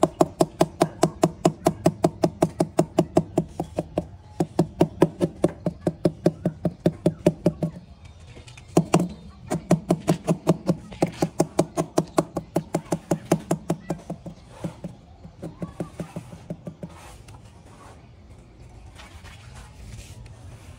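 Rubber mallet tapping a large ceramic tile to bed it into mortar: quick, even knocks at about four a second, each with a short pitched ring. The tapping breaks off briefly about eight seconds in, resumes, then grows lighter and stops a few seconds before the end.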